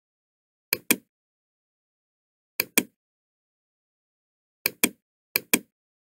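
Computer mouse button clicking four times, each a quick pair of sharp clicks, with dead silence between.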